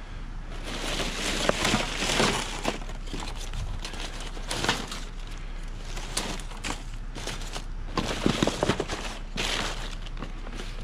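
Rummaging through a dumpster full of cables and packaging: plastic bags and wrap rustling and crinkling, with cables and foam pieces knocking about, in irregular bursts and sharp clicks.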